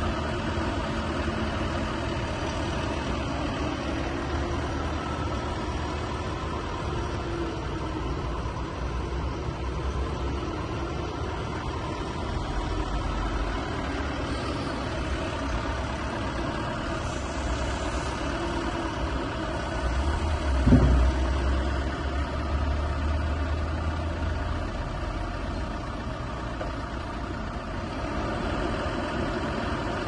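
JCB 3CX backhoe loader's four-cylinder diesel engine idling steadily, with one sharp knock about two-thirds of the way through.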